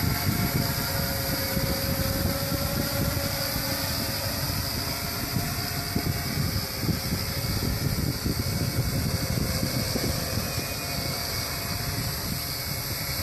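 Custom six-rotor hexacopter's motors and propellers whirring steadily as it descends to an automatic landing under its altitude geofence failsafe, over a gusty low rumble of wind on the microphone.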